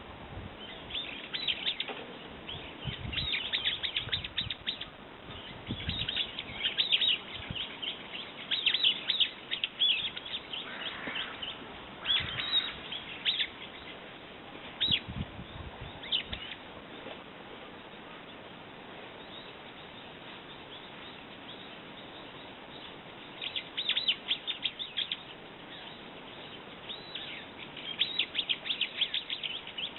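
Brown-eared bulbul calling: bouts of rapid, high chirping notes, falling quiet for several seconds about halfway through before starting up again.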